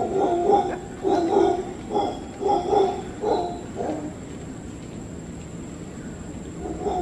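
Mantled howler monkey calling: a run of low barks, about two a second, that stops about four seconds in and starts again near the end.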